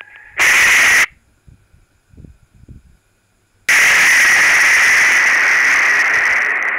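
Close lightning strike heard through a security camera's microphone: a short, loud thunder crack, then about three seconds later a second, overwhelming blast of thunder. The blast overloads the microphone into a harsh hiss that fades only slowly.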